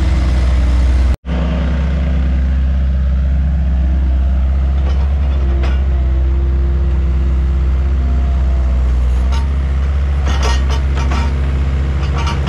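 Bobcat S175 skid-steer loader's diesel engine running steadily while the machine moves and works dirt with its bucket, with a few clanks about ten seconds in. The sound cuts out for an instant about a second in.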